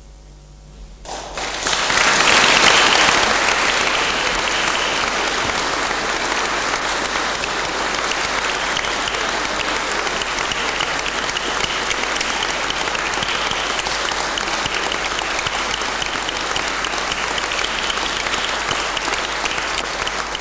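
The last chord of a men's choir dies away, then audience applause breaks out about a second in. The clapping is loudest almost at once, holds steady, and fades near the end.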